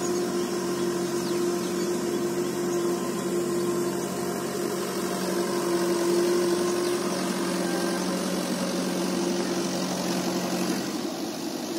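Tractor engine running steadily while ploughing the flooded paddy field, a plain unbroken hum, its lower note dropping away near the end.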